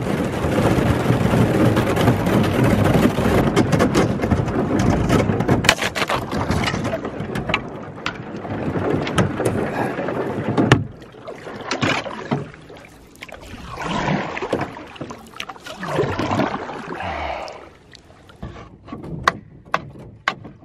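Canoe hull breaking through lake ice about an inch thick. For the first several seconds there is a loud, continuous crunching rush of ice breaking and scraping along the hull. After that come scattered sharp cracks and clinks of ice, with swells of noise every couple of seconds, growing quieter near the end.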